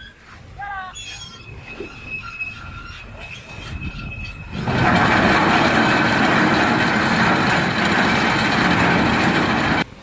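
A few short gliding whistle-like tones over quiet background near the start. About halfway, a loud steady rushing noise starts suddenly and then cuts off abruptly near the end.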